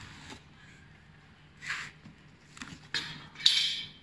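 Cardboard box being cut open and unpacked: a blade scraping through packing tape and cardboard rubbing on cardboard, in a few short scrapes, the loudest near the end.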